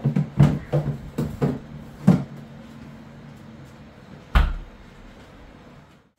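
Household handling knocks: about six quick light knocks and clatters in the first two seconds, then a single heavier thump about four and a half seconds in.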